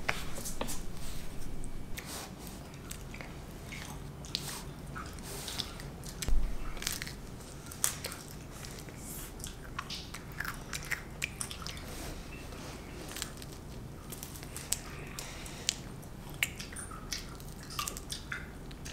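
A young child biting into and chewing a chocolate ice cream cone close up: irregular crunches and small wet mouth clicks, with a dull bump about six seconds in.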